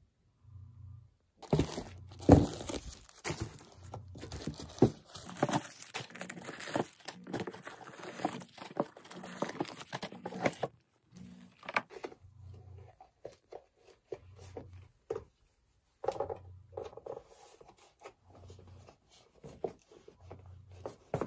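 Tissue wrapping paper crinkling and rustling as the shoes are handled in their box, dense and continuous for about nine seconds. It then gives way to scattered lighter taps and rustles.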